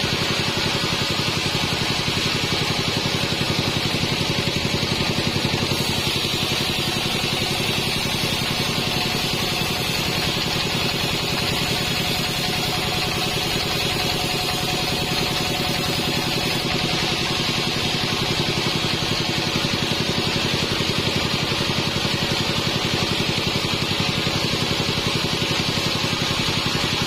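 Modified band sawmill running steadily with a low, rapidly pulsing motor drone. A faint high hiss joins from about six seconds in and stops about ten seconds later.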